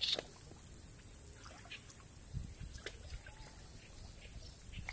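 Faint splashing and trickling of water as a person wades waist-deep through a flooded water-spinach patch, with a low rumble about two and a half seconds in.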